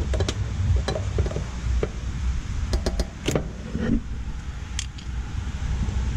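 Scattered metal clicks and clinks of tools being handled at an air-conditioner run capacitor as it is discharged, the sharpest click about three seconds in, over a steady low rumble.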